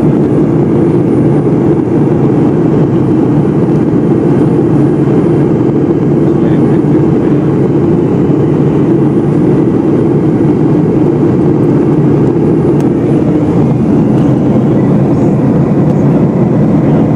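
Cabin noise of a Boeing 757-200 airliner in flight: a steady, even low roar of its two jet engines and the air rushing past the fuselage, heard from a window seat.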